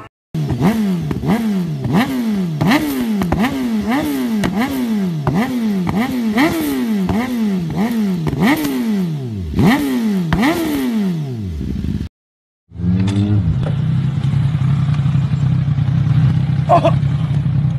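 BMW S1000RR inline-four sport bike revved in quick throttle blips about once a second, each rev climbing sharply and falling back. After a brief break, a motorcycle engine idling steadily.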